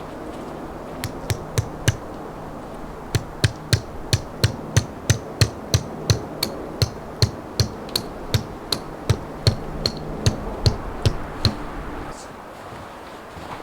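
A rapid series of sharp knocks, each with a short ringing edge: a few strikes, a brief pause, then a steady run of about three blows a second that stops about a second and a half before the end.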